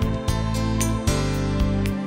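Background music: a gentle acoustic-guitar-led tune with plucked notes about every half second.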